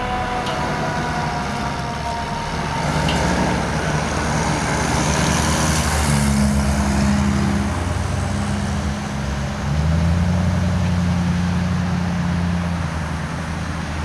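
Road traffic: vehicle engines running and passing, with a siren dying away in the first second or so. A louder pickup-truck engine comes in about ten seconds in.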